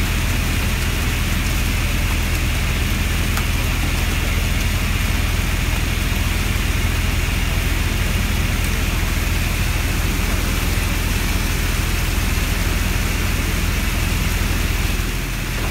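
Fishing boat engine running steadily, a deep even hum under a constant rushing hiss, easing off briefly near the end.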